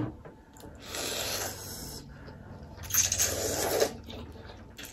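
Chicken thukpa noodles being slurped, in two long slurps of about a second each, the second a little louder.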